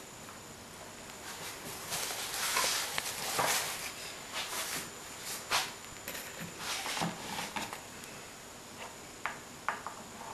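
Wooden peg-solitaire boards handled and shifted across a plastic tablecloth, rustling with irregular knocks. Near the end come a few short, sharp clicks of pegs being touched and set in their holes.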